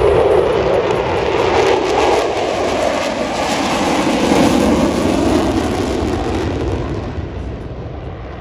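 Jet engine noise from a diamond formation of four F/A-18 Super Hornets passing overhead, steady for about six seconds and then fading away as the jets climb off.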